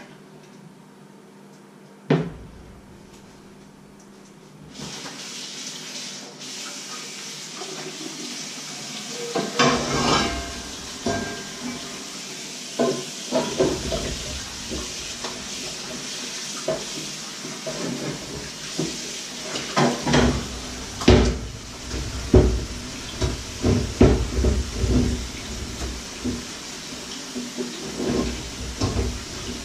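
Dishes and pots clattering and knocking as they are handled at a kitchen sink, over a kitchen tap running steadily. A single sharp knock comes about two seconds in, and the tap comes on a few seconds later.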